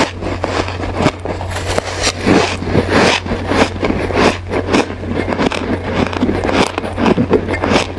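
Close-miked crunching and chewing of hard ice, a rapid, irregular run of crisp crunches, over a steady low hum.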